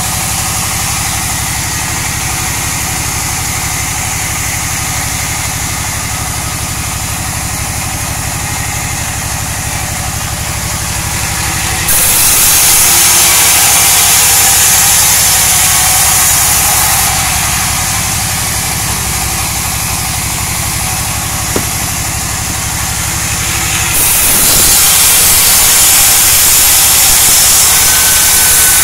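Band sawmill running steadily with a low drone, its blade cutting through a freshly felled log in two long spells of loud hissing, the first about twelve seconds in and the second from about twenty-four seconds until shortly before the end.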